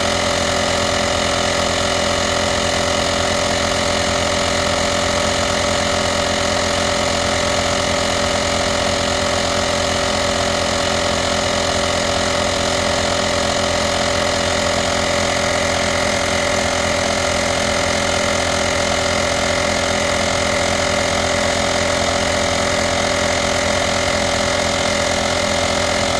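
VacLife portable tire inflator's air compressor running steadily as it inflates a tire, with a fast, even pulsing.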